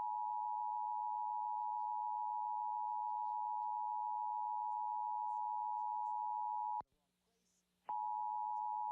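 Emergency Alert System attention signal: a steady two-tone tone of 853 and 960 Hz sounding together. It cuts out for about a second around seven seconds in, then resumes.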